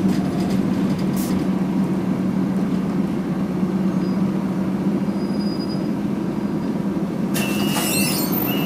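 City bus engine running steadily with road and cabin noise, heard from inside the bus as it moves slowly along the busway station platform. A hiss comes in near the end.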